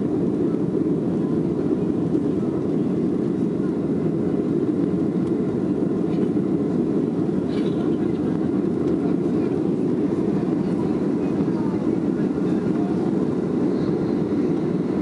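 Steady low cabin noise of a Boeing 737-800 in the climb after takeoff: its CFM56 engines and the airflow over the fuselage, heard from inside the passenger cabin.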